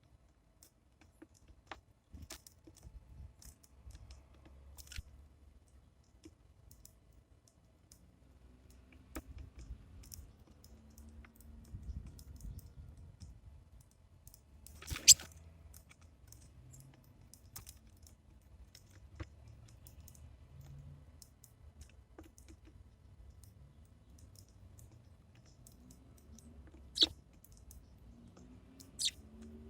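Sparrows feeding at a bird feeder: irregular sharp clicks and taps of beaks pecking and cracking seed. Three louder knocks stand out, about halfway through and twice near the end, over a faint low rumble.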